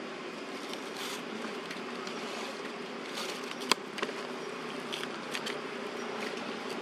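Steady low buzzing of flying insects, with one sharp click a little past halfway through and a few fainter ticks around it.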